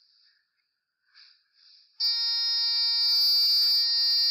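A littleBits buzzer module starts a loud, steady buzz suddenly about halfway through. It is the anti-intrusion alarm going off because its light sensor detects light with the jewellery box open.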